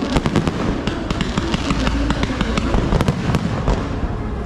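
Fireworks display: a rapid string of sharp bangs and crackles over a continuous rumble.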